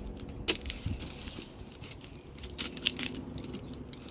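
Taped cardboard box being opened by hand: packing tape and cardboard crinkling and scraping, with a few sharp clicks, the loudest about half a second in and near three seconds.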